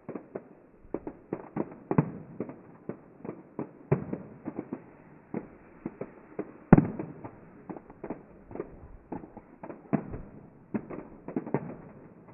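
Fireworks going off in a fast, irregular barrage of sharp bangs and crackles, several a second, with the loudest bang about two-thirds of the way through.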